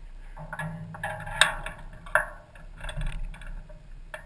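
Clicks, knocks and rustling from someone handling gear in the open cockpit of a Hy-Tek Hurricane ultralight, with two sharp knocks about a second and a half and two seconds in.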